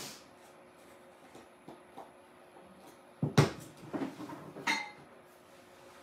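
A small jar of chalk paste being opened and set down on a tabletop: a few faint clicks, then a cluster of knocks and clatters about three to five seconds in.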